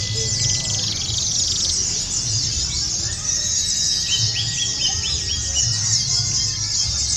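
A chorus of many white-eyes (pleci) singing at once: a dense, continuous high twittering, with a run of short repeated notes a little lower near the middle. A low rumble runs underneath.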